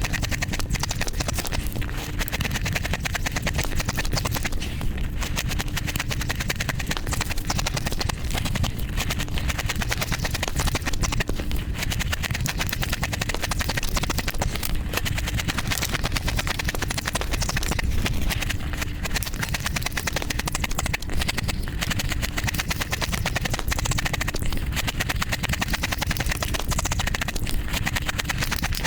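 A person biting and crunching ice close to the microphone, a continuous run of crisp crunches with no pause.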